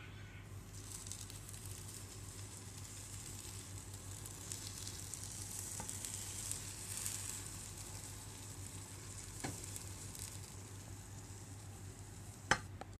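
Cold sugar syrup poured from a pot onto hot, just-baked pastries in a glass baking dish, sizzling as it hits them and soaks in. A couple of brief clicks come in the second half, the loudest near the end.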